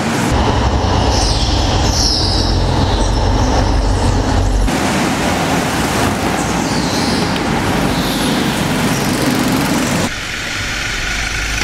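Go-karts running at speed, a steady engine drone with short high tyre squeals. The sound changes abruptly about five and ten seconds in.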